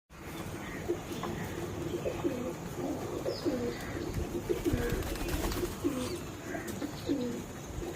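Pigeons cooing: several low calls overlapping and repeating.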